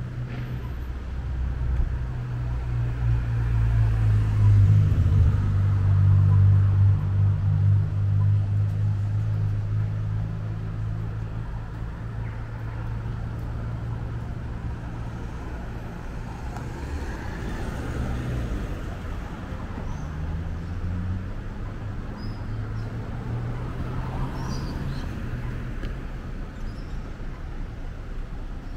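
Street traffic with a motor vehicle's engine running close by: a low hum that swells a few seconds in, stays loud for several seconds, then eases off over a steady background of road noise.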